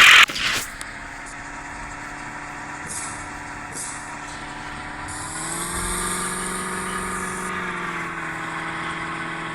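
Porsche car engine running steadily, its note rising a little about five seconds in under light throttle, then settling back. A loud rushing noise cuts off suddenly just as it begins.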